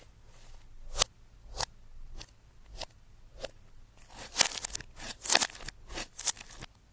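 Slime being pressed and poked by hand, giving sharp clicking pops. They come about twice a second at first, then turn into a dense run of louder crackles for the last few seconds.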